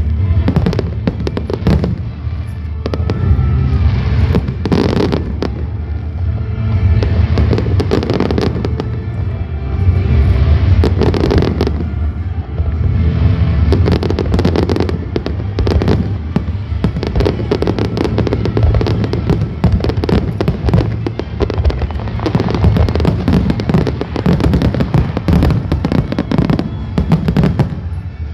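Fireworks display: a dense, unbroken barrage of shell bursts and crackling, many reports a second over a continuous low rumble of explosions.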